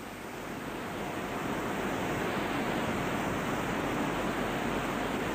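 Steady, even hiss of background noise with no speech, growing slightly louder over the first couple of seconds.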